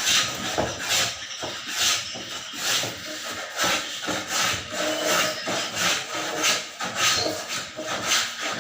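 Repeated scraping strokes, a little more than one a second, as of something rubbed or sawn back and forth by hand.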